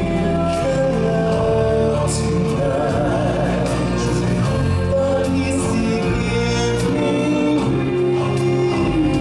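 Stage-show music: several voices singing together over instrumental backing, with a long wavering held note about three seconds in.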